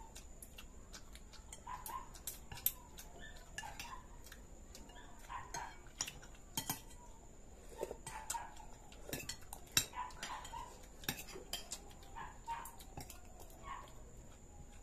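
Metal forks and spoons clinking and scraping against ceramic plates during a meal: irregular sharp clicks, a few louder ones among them.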